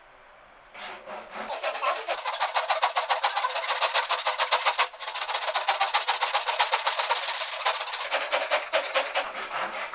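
Hand saw cutting wood in a dovetail saw guide, in quick back-and-forth strokes that rasp repeatedly, with one brief pause partway through.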